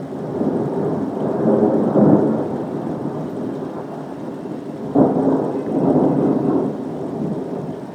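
Thunder rolling over steady rain: a long rumble that builds to a peak about two seconds in and eases off, then a sharper crack about five seconds in that rumbles on and fades.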